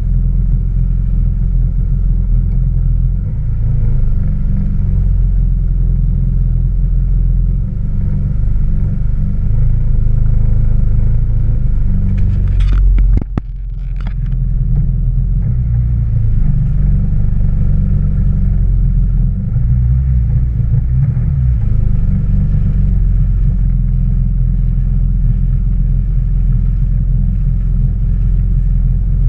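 Yamaha WaveRunner engine running steadily at low speed, a loud low rumble heard close up. About halfway through it briefly drops away, with a couple of sharp ticks.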